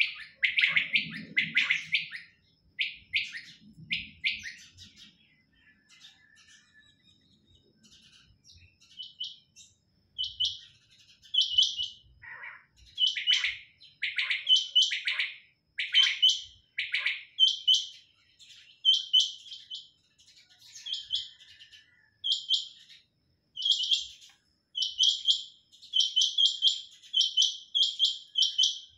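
Caged quails calling: many short, sharp, high-pitched calls repeated in quick runs, with several birds overlapping. The calls thin out for a few seconds early on, then come thick and fast through the second half.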